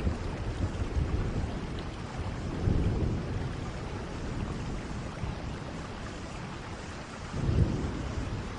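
Steady rain falling during a thunderstorm, with low rolls of thunder swelling about three seconds in and again near the end, the second the louder.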